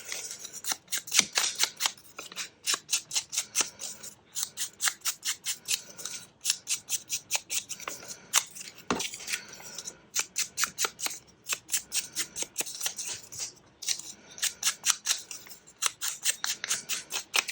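Tim Holtz ink pad swiped along the edges of small paper pieces. It gives a rapid run of short rubbing strokes, a few a second, with brief pauses between runs.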